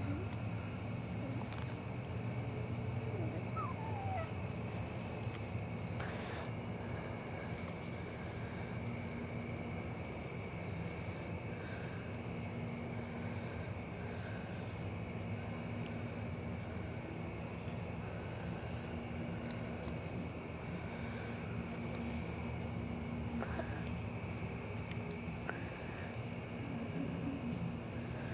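Evening insect chorus: one steady high-pitched trill, with short chirps from another insect just below it, irregular, roughly one a second.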